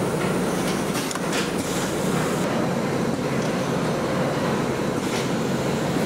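Steady mechanical rumble of screen-print shop machinery, with a few faint clicks and clatters on top.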